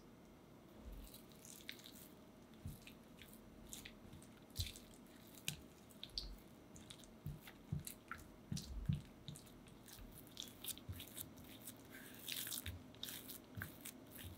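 Spatula working beaten egg into thick coffee choux paste in a glass bowl: irregular wet squelches and sticky clicks, starting about a second in, as the broken-up dough is mixed back into a smooth paste.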